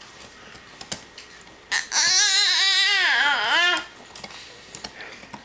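A toddler's loud, wailing vocal noise lasting about two seconds, its pitch wobbling rapidly up and down.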